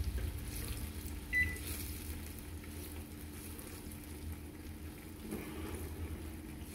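Metal spoon stirring tomato sauce in a frying pan, with one short ringing clink of the spoon against the pan about a second and a half in, over a steady low hum.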